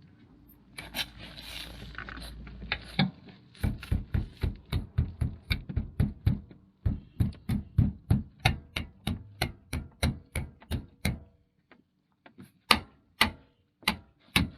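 A steady run of sharp knocks, about three a second, from work refitting the plastic exterior trim on a van; the knocks break off and a few more come near the end.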